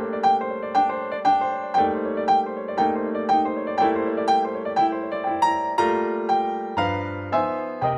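Background music: a piano or electric piano playing a steady run of repeated notes over held chords.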